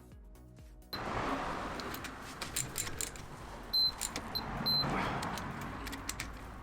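Background music for about the first second, then a car's mechanical running noise with scattered clicks and a few short, high-pitched electronic beeps.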